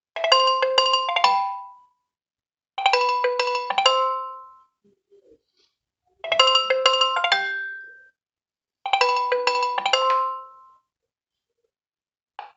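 Nokia 1.3 smartphone ringtone: a short phrase of quick, bright chime-like notes, played four times with pauses of about a second between.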